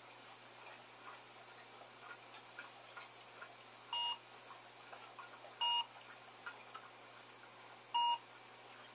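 Smartphone barcode-scanner app beeping each time it reads a DVD case's barcode in multi-scan mode: three short, bright beeps, the first about four seconds in and the others about two seconds apart, with faint clicks in between.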